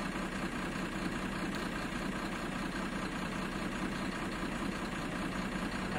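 Bharat Benz 4023 truck's six-cylinder unit-pump diesel engine idling steadily, heard from inside the cab. It is running with one cylinder dead, which the mechanic traces to a faulty injector nozzle in cylinder 5.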